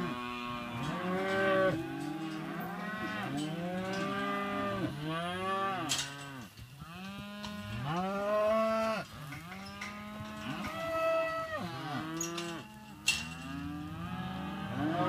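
A mob of young Angus steers, 6 to 9 months old, mooing continuously, with many calls overlapping and following one after another.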